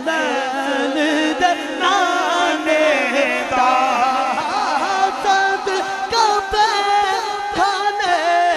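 A man singing a naat into a microphone, unaccompanied, in a long melodic line with held notes and ornamented turns.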